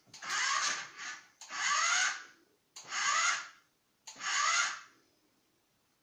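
Toy remote-control car's electric motor whirring in four bursts of about a second each, rising in pitch as it spins up, its wheels spinning against the sofa cushion: the car is stuck.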